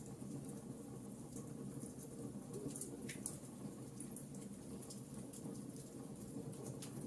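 Fire crackling: scattered sharp pops and snaps over a steady low rush of burning flames.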